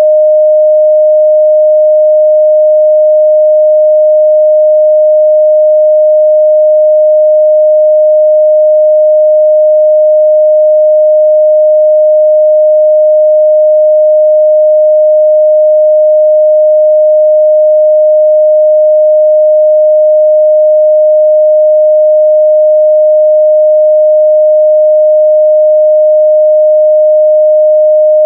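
Steady 614 Hz sine-wave test tone: a single pure, unchanging midrange pitch, loud.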